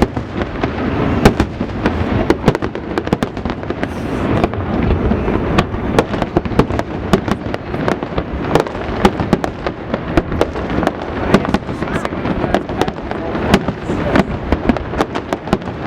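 Fireworks display: a dense, unbroken barrage of sharp bangs and crackles, many to the second, over a continuous low rumble.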